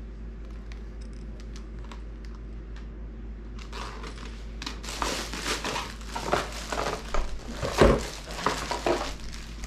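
Plastic packaging bags crinkling and rustling as they are handled and rummaged through, starting about four seconds in and loudest a couple of seconds before the end.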